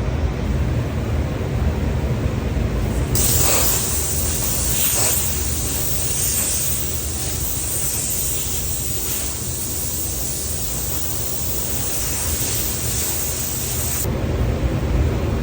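Compressed air hissing steadily for about eleven seconds, starting suddenly about three seconds in and cutting off sharply, over a steady low rumble.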